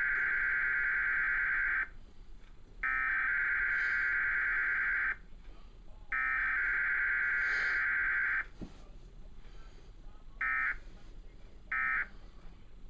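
Emergency Alert System SAME data tones from a TV cable box: three long, buzzy, warbling header bursts about a second apart, then two short end-of-message bursts near the end.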